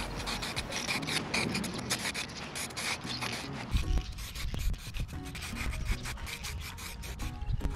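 Aerosol spray can of red heat-resistant caliper paint hissing on and off as it coats steel leaf springs.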